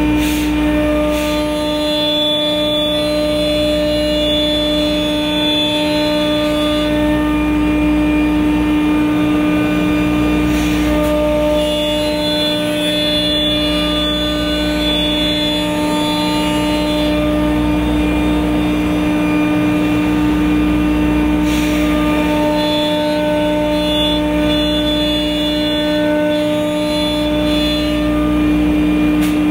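CNC router spindle running steadily with a strong hum as the bit cuts a wooden speaker baffle. The higher machine tones shift in a repeating cycle about every ten seconds as the machine traces its cutting passes.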